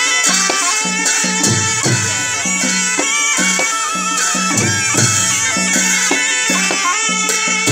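Nepali panche baja band playing: sahanai shawms hold a reedy, wavering melody over regular beats on hand drums.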